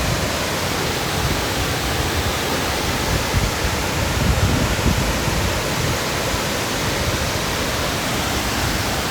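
Close-up roar of a cascading waterfall: a steady, dense rush of falling water with low rumbling, near enough that its mist reaches the listener.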